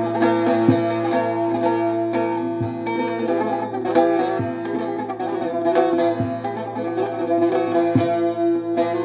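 Bağlama (long-necked Turkish saz) played solo in a fast instrumental passage of quickly plucked notes, with steady drone tones ringing underneath the melody.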